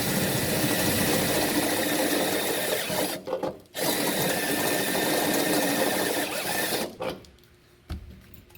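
Electric drill running with a larger bit, widening a too-small pilot hole in the car's body metal. Two runs of about three seconds each, with a short pause a little after three seconds in.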